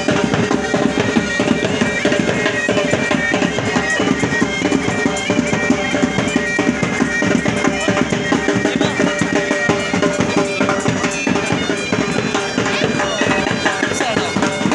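Music with a steady held drone under a stepping higher melody, over dense drumming.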